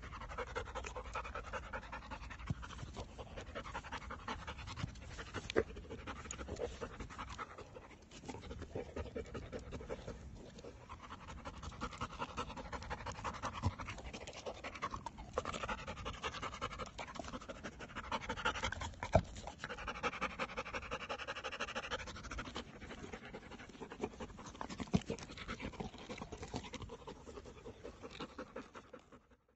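Appenzeller Mountain Dog panting fast and steadily close up, with a few sharp clicks along the way.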